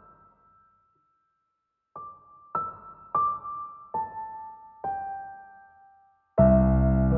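Slow background piano music: single notes ring out one at a time, stepping downward after a short pause. A loud, full sustained chord comes in near the end.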